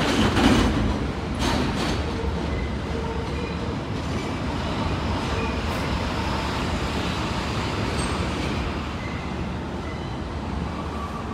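Elevated NYC Subway train, an R42 on the Z line, running away over the track switches. A few wheel clacks over the rail joints come near the start, then a steady rumble slowly fades.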